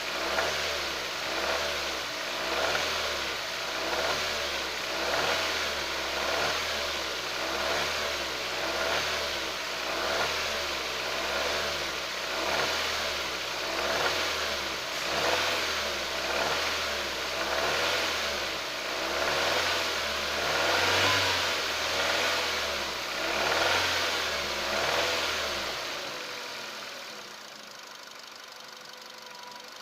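Nissan Qashqai J10 engine revved up and down over and over, about once every second and a quarter, while being checked for a knock and noise from the engine area that shows at idle and under load. Near the end the revving stops and the sound drops for a few seconds before rising again.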